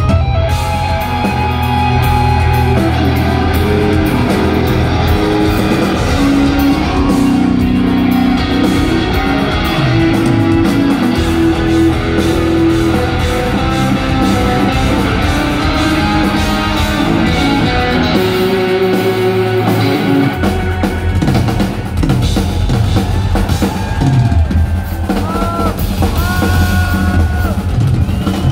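Live instrumental progressive metal band playing loud through the PA: electric guitars over a drum kit. The low end drops out briefly past the middle, then the full band comes back in.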